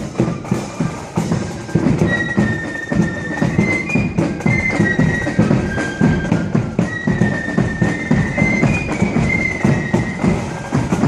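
Marching flute band playing a tune on the move: high flutes carry the melody over rapid beats of bass and side drums.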